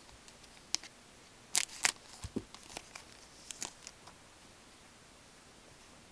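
Hockey trading cards being flipped through and shuffled by gloved hands: scattered sharp clicks and snaps of card stock, the loudest two about one and a half seconds in. They die away after about four seconds, leaving faint room hiss.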